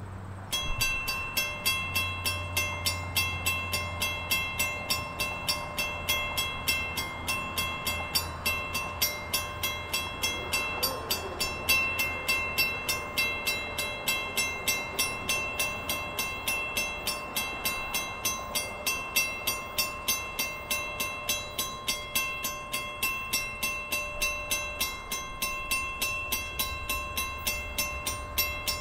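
Railway level-crossing warning bell that starts about half a second in and rings on in even strikes, about two a second, as the crossing activates for an approaching train. Near the end a low rumble from the approaching train's locomotive rises underneath.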